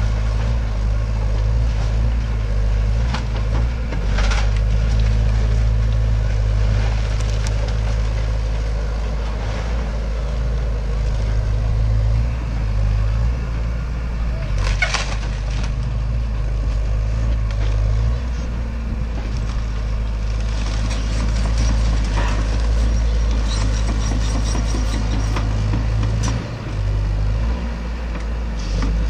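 Hyundai tracked excavator's diesel engine running under shifting hydraulic load as it pulls a house apart, with a few sharp cracks and crashes of breaking timber and debris; the loudest comes about fifteen seconds in.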